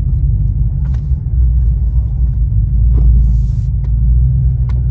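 Lifted Chevy Silverado 1500 pickup on 26-inch wheels rolling slowly, heard from inside the cab as a steady low rumble, with a few faint clicks.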